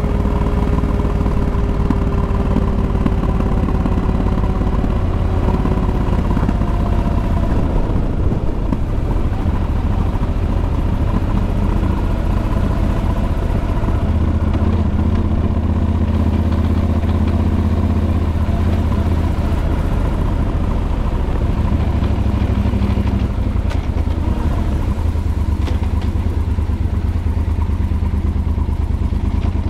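An engine running steadily with a loud low drone, a faint tone sliding slowly downward in pitch over the first few seconds.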